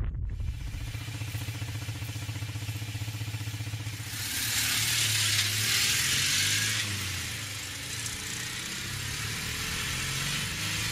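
Small air-cooled flat-twin Citroën engines running on the move, heard from one of the cars, with a steady low engine hum. A louder rush of wind and road noise comes in for a few seconds in the middle, as a 2CV runs close alongside.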